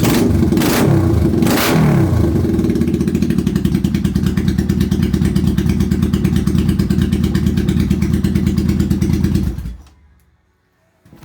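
Honda VT750 Shadow V-twin motorcycle engine running, with two quick throttle blips in the first couple of seconds. It then settles into a steady idle and cuts off suddenly near the end as it is shut down. The carburettors are rejetted (130/45 jets).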